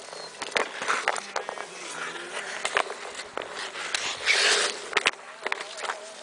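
Ice skate blades scraping and carving on thin, clear lake ice, with many sharp clicks and taps scattered through. A hissing scrape, the loudest sound, comes about four seconds in.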